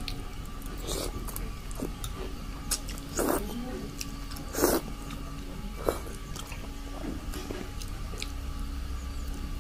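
A person eating Maggi instant noodles: chewing, with two loud short slurps of noodles around the middle, and a few sharp clicks of the fork on the plate.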